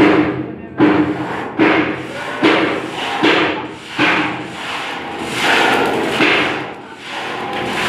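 Hammer blows struck at an even pace, about one every 0.8 seconds for the first four seconds, then two more a little further apart. Each blow leaves a short ringing tone.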